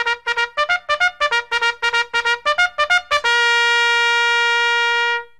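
Instrumental intro music: a quick run of short, detached notes, then one long held note for about two seconds that stops abruptly.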